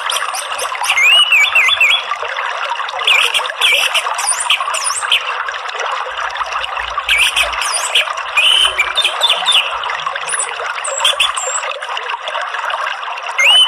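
Orange-headed thrush singing short whistled, gliding phrases every second or two over a steady sound of running water.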